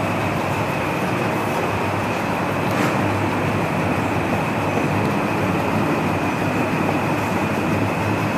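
Steady background drone: a low hum under a rushing noise with a faint high whine. One light tap comes about three seconds in.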